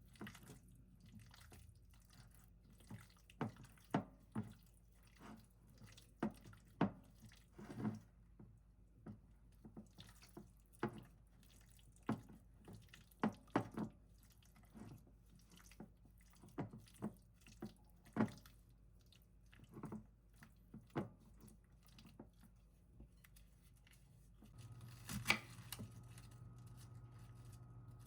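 Irregular light taps and clicks in a kitchen, one every second or so, with a low steady hum coming in near the end.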